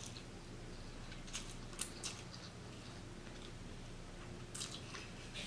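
Quiet eating sounds from a person chewing Hakka noodles, with a few soft clicks and smacks scattered through, over a faint steady hum.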